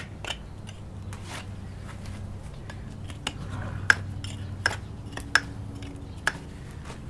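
Hoof knife paring horn from the underside of a horse's hoof: a series of sharp, irregular snicks as the blade cuts, the strongest few in the second half.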